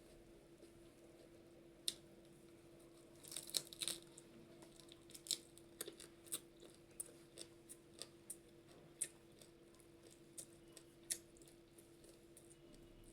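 Close-miked eating: chewing with sharp, wet mouth clicks and smacks at irregular moments, a quick flurry of them about three and a half seconds in, over a steady low hum.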